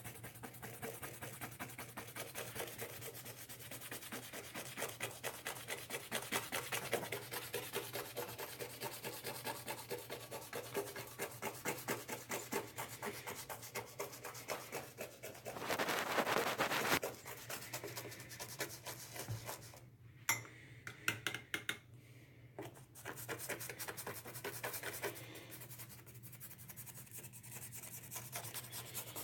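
Rapid back-and-forth scrubbing on a leather sneaker, working caked-in dirt loose. About halfway through there is a louder rushing burst lasting about a second, followed by a short pause with a few knocks before the scrubbing resumes.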